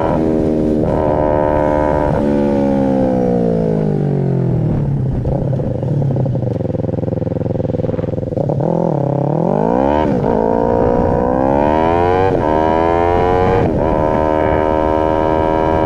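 2014 Kawasaki Ninja 300's parallel-twin engine under way. The revs fall away over about four seconds and hold low. From about halfway through, the engine pulls back up through the gears, its pitch dipping at each upshift, and it ends at high, steady revs.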